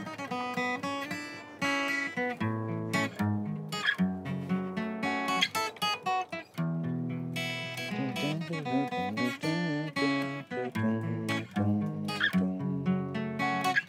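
Solo guitar playing a quick picked melodic line over bass notes, in the interlocking style of African guitar, with a few bent notes near the middle.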